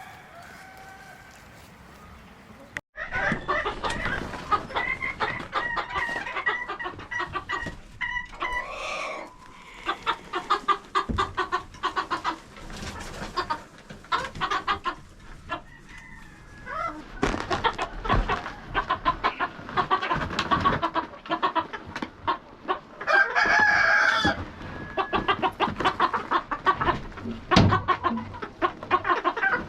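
A flock of chickens clucking and chattering, starting suddenly about three seconds in, with a rooster crowing once about twenty seconds in.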